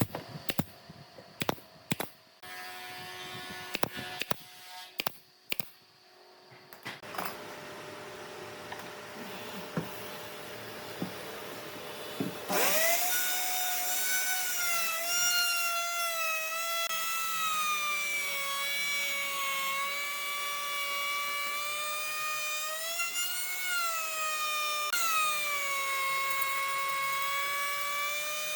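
Sharp clicks and knocks of work on wood, then about twelve seconds in an electric power tool starts up and runs with a steady high whine. The pitch wavers as the load changes, sags briefly and picks up again near the end.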